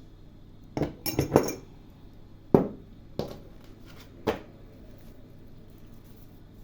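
Tarot cards and deck being handled on a table: a quick cluster of sharp taps and clacks about a second in, then three single knocks about a second apart.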